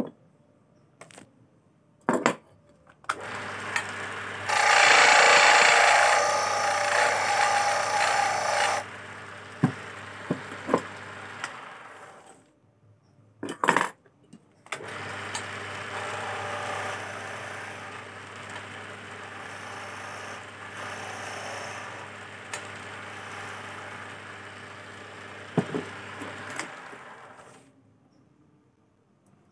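Small electric wood lathe running with a steady hum while a chisel cuts a turning teak chess piece, the cutting loudest for about four seconds early on. The lathe stops, a knock is heard, then it runs again for about twelve seconds with lighter cutting before stopping.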